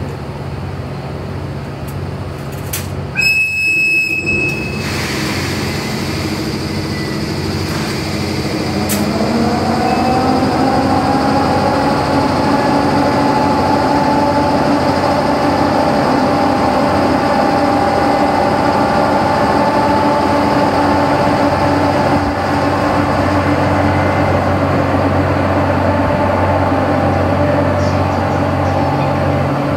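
Electric locomotive giving one short, high whistle blast about three seconds in, over a steady low hum. Its traction motors and gears then start a whine that rises in pitch and settles to a steady tone as the train pulls away from the platform and gathers speed, growing louder.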